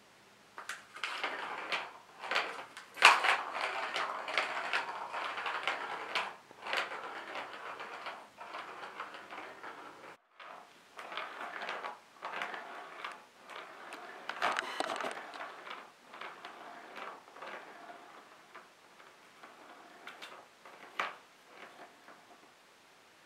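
Plastic ball rolling and rattling around the Catit Senses Circuit's plastic track as cats bat at it, with rapid, irregular clicks and clatters. The clatter is busiest in the first several seconds, breaks off briefly about ten seconds in, then resumes in sparser bursts.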